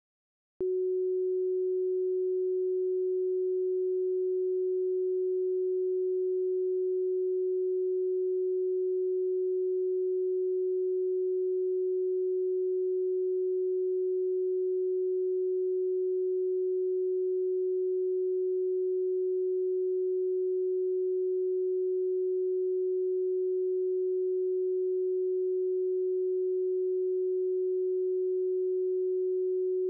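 A single pure sine tone, a computer-generated Rife frequency, starting about half a second in and then held at one steady pitch and loudness.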